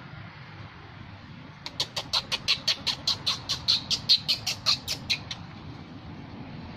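An animal calling in a rapid run of about twenty short, sharp, high-pitched notes, five or six a second, starting about two seconds in and stopping abruptly after about three and a half seconds.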